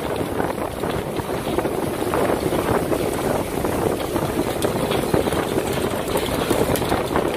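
Steady wind buffeting the microphone aboard a fishing boat at sea, with the boat's engine and rushing water running underneath as a continuous noise.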